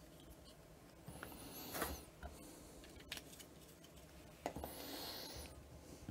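Faint handling noise of small plastic model-railway bogie parts being moved and set down on a cutting mat: a few light clicks and two short spells of rubbing, about a second in and again past four seconds.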